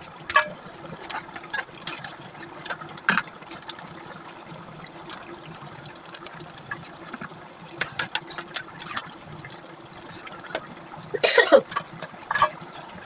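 Kitchen utensils clicking and knocking against cookware over a steady low hum, with a burst of louder clatter near the end.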